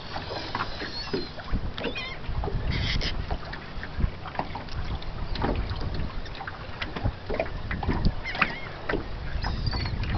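Wind buffeting the microphone and choppy water slapping against a small boat's hull, with scattered knocks. Now and then birds call overhead in short high notes.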